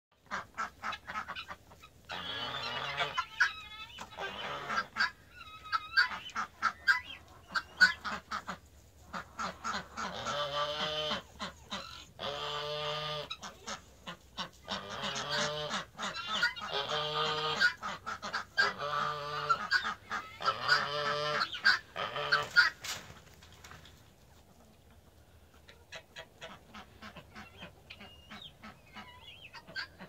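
A coop of chickens and ducks calling: loud, drawn-out calls about a second long, repeated every couple of seconds with many short calls between. About two-thirds of the way in, the loud calls stop and only sparse short calls remain.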